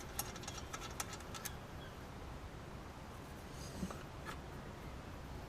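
Faint, irregular clicking of a ratchet wrench turning the 12 mm bolt on the ABS sensor, stopping after about a second and a half; a couple of faint ticks follow.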